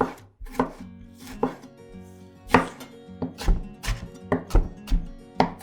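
Kitchen knife chopping tomatoes coarsely on a cutting board: about a dozen irregular strokes, louder from about halfway through.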